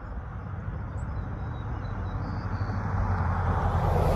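A pickup truck towing a boat trailer approaching on the road, its engine and tyre noise growing steadily louder over the last couple of seconds.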